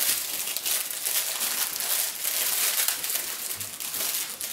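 Clear plastic bag crinkling as it is handled and pulled open by hand, an irregular run of crackles.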